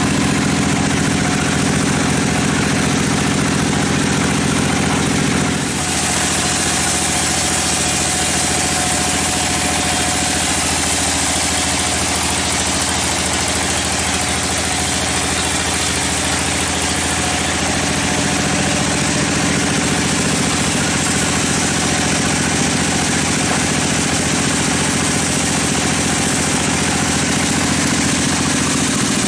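Sawmill band saw running and cutting through a large mahogany log: a steady machine drone with the hiss of the blade in the wood. About six seconds in, the hiss grows and the low drone eases, and the drone strengthens again later on.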